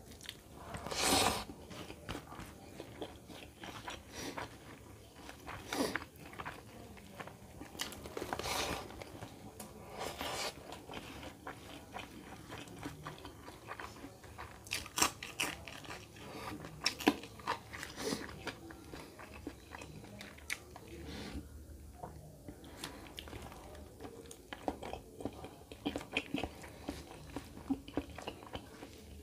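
Close-miked eating sounds: chewing, wet mouth smacks and crunches of chicken curry and rice eaten by hand. Fingers squish rice into curry on a banana leaf, with a louder burst about a second in and another around eight seconds in.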